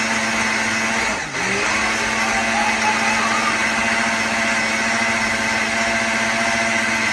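Countertop blender running steadily, pureeing a milk-and-fruit smoothie. Its motor slows briefly about a second in, then picks back up to full speed.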